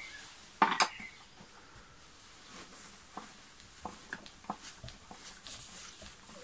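Hard plastic housing of an Eta Neptun vacuum cleaner being handled as its top cover is worked loose: one sharp knock under a second in, then scattered light clicks and scrapes.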